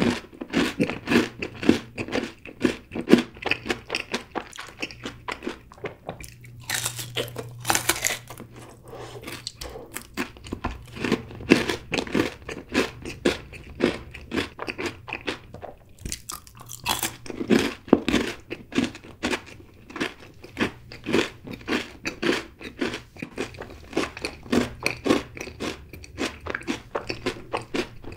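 Close-miked chewing and crunching of a solid chocolate bar: a dense run of rapid crunchy clicks, with a couple of sharper bites partway through. A faint low hum runs underneath.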